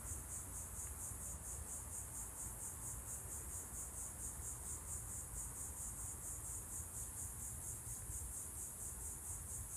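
Chorus of insects such as crickets or katydids: a steady, high-pitched trilling that pulses at an even, rapid rate.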